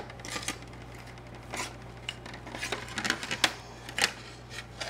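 Empty quahog shell halves clicking and scraping against each other and a metal sheet pan as they are set out in rows, in a string of irregular light clicks.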